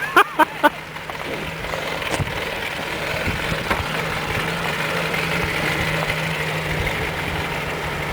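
1926 Morris Cowley's four-cylinder side-valve engine running steadily as the bare rolling chassis drives. A few short high-pitched calls come right at the start.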